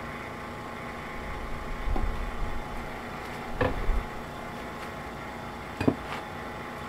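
Glassware being handled on a bench: a few knocks and a clink as a glass beaker is moved, over the steady hum of the vacuum pump drawing the filtration.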